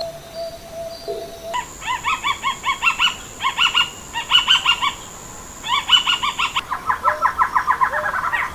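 Bird calling in bouts of short rising notes, about five a second, ending in a faster run of notes near the end, with a steady high whine behind much of it.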